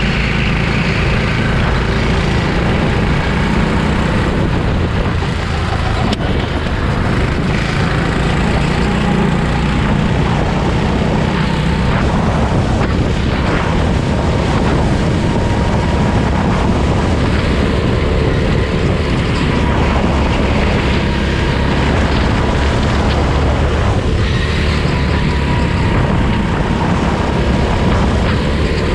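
Go-kart engine running continuously under way, the level staying steady with no pauses.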